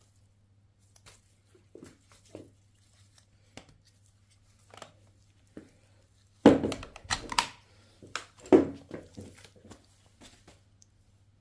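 Handling noises: scattered light clicks and knocks over a faint steady low hum, with louder clattering and rustling about six and a half seconds in and again about two seconds later.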